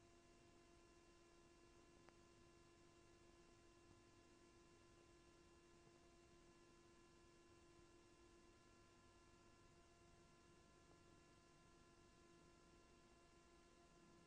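Near silence: a faint steady electrical hum with a few constant tones over low hiss, the background of an old lecture recording.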